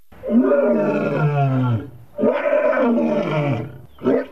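Male lion roaring twice, two long calls each dropping in pitch at the end.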